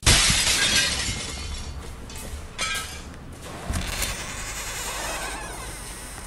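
A sudden loud crash that dies away over about a second and a half, followed by two softer knocks, over background music.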